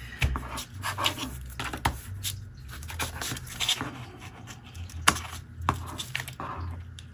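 Hands sliding and smoothing sheets of paper on a cutting mat: scattered rustles, scrapes and light taps, with one sharper click about five seconds in, over a low steady hum.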